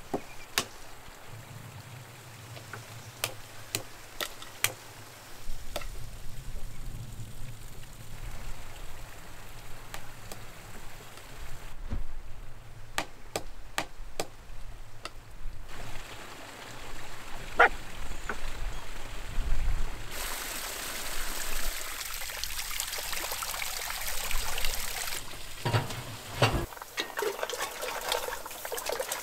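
Running water trickling and pouring, with scattered light clicks and knocks throughout. A louder hiss runs for several seconds past the middle.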